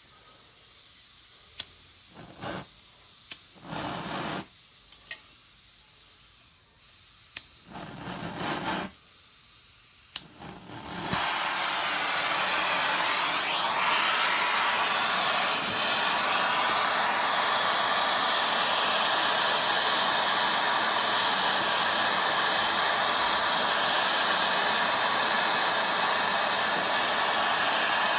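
Handheld gas torch: a faint high hiss with a few short handling noises, then about 11 seconds in a much louder steady rushing hiss of the torch flame sets in and keeps going. The flame is heating the aluminium transmission case around a seized steel bolt to free it.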